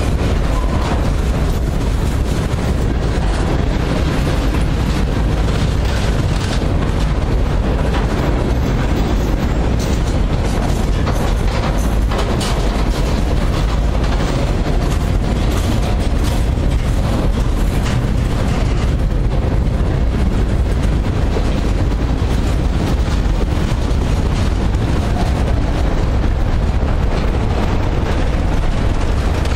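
Freight cars rolling past at close range: a steady low rumble of steel wheels on rail, with frequent sharp clicks and knocks.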